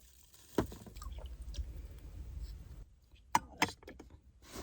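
Handling clicks and knocks while setting up a small electric appliance to boil water, with a low rumble in the middle and two sharp clicks about three and a half seconds in.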